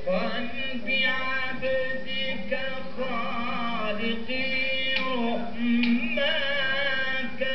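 A man chanting a tawshih, an Arabic devotional song, in long ornamented notes that bend and waver.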